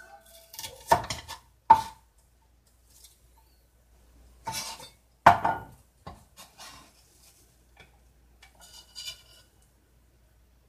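A kitchen knife knocks on a wooden cutting board while slicing onion, and a ceramic bowl clatters as sliced onion is scraped into it with the blade. There are two sharp knocks in the first two seconds and two more around the middle, the last of them the loudest, then lighter clicks and scrapes.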